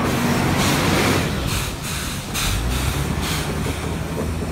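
Electric train passing at moderate speed, its wheels clattering over rail joints in a regular rhythm, with a bus engine running close by at first and fading away.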